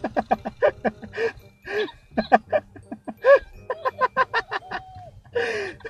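A person laughing in quick bursts, followed by more scattered laughing and voice sounds.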